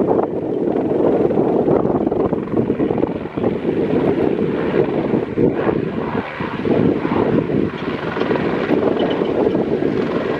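Hyundai i20 N rally car running hard at speed on the stage: a loud, continuous engine and road noise that swells and dips.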